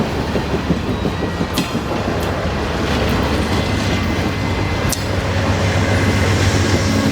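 Amtrak passenger train rolling past: a steady rumble of the cars, with a few sharp clicks from the wheels crossing rail joints.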